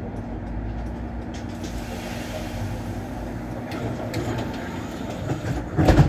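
Low, steady running of a stationary MAN articulated bus, heard from the driver's cab, while a car passes by with a rising and falling rush of tyre noise. A single sharp thump comes near the end.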